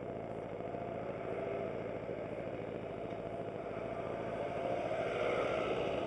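Aprilia SportCity scooter's engine idling steadily while stopped. A truck driving across in front grows louder near the end.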